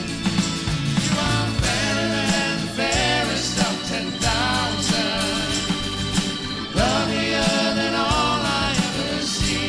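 Worship song played by a band, a singing voice over drums and accompanying instruments.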